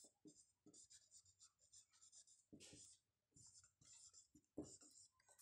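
Faint scratching of writing, in short irregular strokes.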